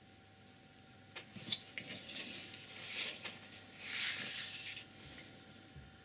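A sheet of painting paper is slid and turned on the table top: a few light clicks, then two swells of dry rustling scrape, each lasting about a second.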